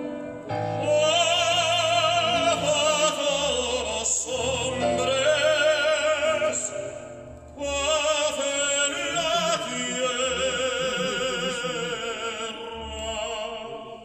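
Recorded operatic singing with a strong vibrato, in two long phrases with a short break in the middle, played over a hi-fi demonstration system of Trafomatic tube amplifiers and Blumenhofer Classic 1733 loudspeakers. It fades toward the end.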